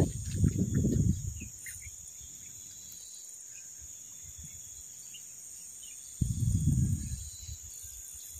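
Steady high-pitched drone of insects. Two short bursts of low rumbling noise break over it, one at the start and one about six seconds in, each about a second long.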